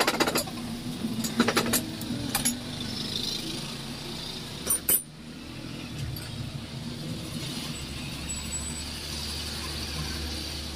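Sharp metal clinks and knocks of hand tools working on a Swift Dzire front strut clamped in a steel bench vise: a few in the first two and a half seconds and a louder pair about five seconds in. A low steady hum runs underneath.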